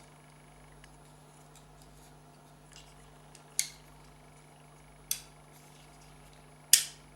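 Three sharp, short clicks of small hard parts knocking together as the opened reverse light switch and its contacts are handled, the last one the loudest, near the end, over a faint steady hum.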